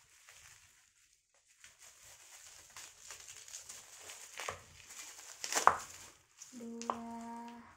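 Plastic bubble wrap crinkling and rustling as a wrapped skincare bottle is handled and unwrapped, with one sharp loud crackle about two-thirds of the way through. Near the end a steady, even-pitched hum lasts about a second.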